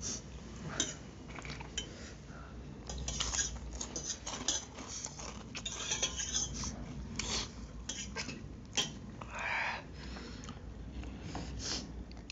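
Spoons and forks clinking and scraping against steel plates as noodles are eaten, in short irregular clicks.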